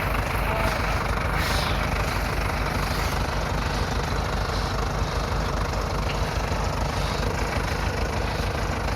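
SAME Explorer II tractor's diesel engine running steadily.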